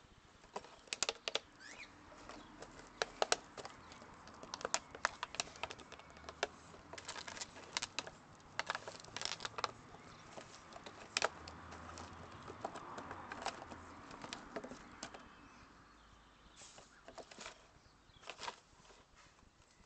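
Clear plastic bottle crackling and crunching as a chocolate Labrador chews and paws it on dirt: irregular sharp crackles, thinning out near the end.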